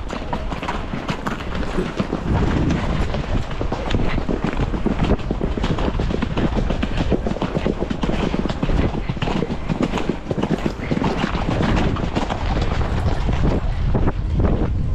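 A ridden horse's hoofbeats at speed, heard from the saddle as a dense run of knocks and clatter, over steady heavy wind noise on the microphone.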